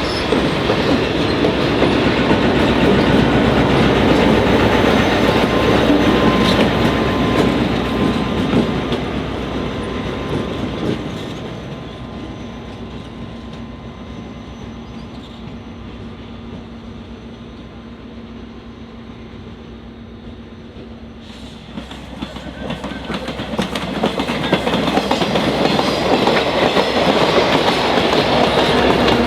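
Diesel-hauled train of cabooses rolling past, its wheels clacking over the rail joints, fading away over the first ten seconds or so. After a sudden cut about twenty seconds in, the train approaches again and grows steadily louder.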